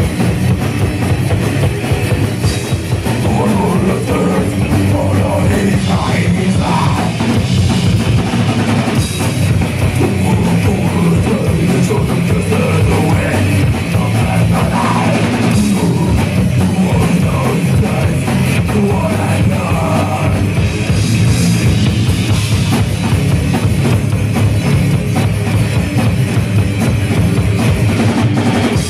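Live metal band playing: a drum kit with bass drum under distorted electric guitars, loud and without a break.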